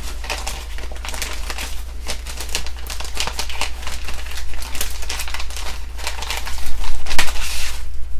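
Clear resealable plastic bag crinkling and crackling as hands open it and slide a decal sheet out, loudest near the end.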